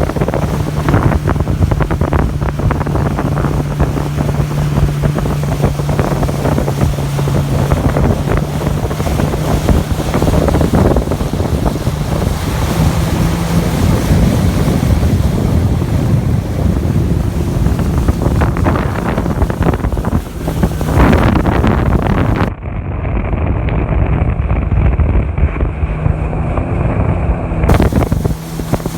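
Jet ski engine running at speed with wind buffeting the microphone and water rushing and splashing. The sound turns muffled for about five seconds near the end.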